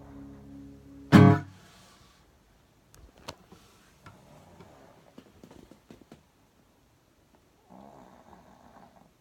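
A guitar's last chord ringing, cut off by a loud thump about a second in. Then a few quiet clicks and a dog snoring near the end.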